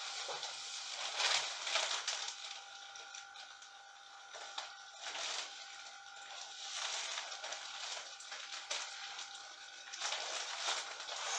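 Clear PVC plastic mac rustling and crackling as the wearer moves her arms and pulls up the hood, louder in spells about a second in, about five seconds in and near the end.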